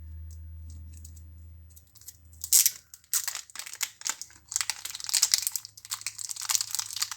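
Zippo lighter packaging being opened by hand. A low hum runs for the first two seconds; then a sharp crackle comes about two and a half seconds in, followed by steady crinkling and rustling of the wrapping.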